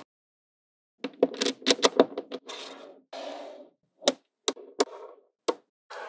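Small magnetic balls clicking as they snap together: a quick run of clicks, then a short rattling rustle, then a few single sharp clicks.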